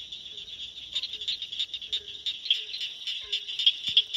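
Cricket frog calling, a fast run of sharp, high clicks, about six or seven a second.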